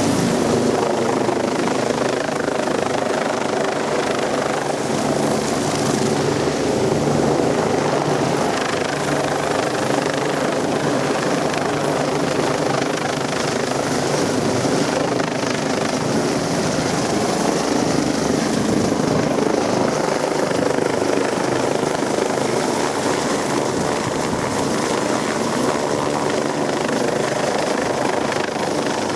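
Helicopter running steadily close by, its rotor and engine hum mixed with the strong rush of its rotor downwash, as strong as typhoon wind.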